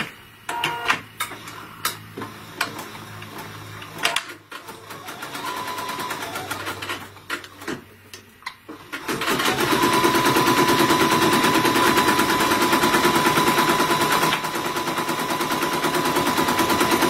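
A few scattered clicks, then about halfway in a Bernina embroidery machine starts stitching at a fast, even rate with a steady whine. It is sewing out the placement line for an applique piece.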